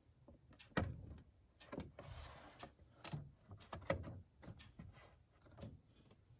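Handling noises: a quick string of light knocks and clicks with a short rustle or scrape about two seconds in. The loudest knocks come about a second in and about four seconds in.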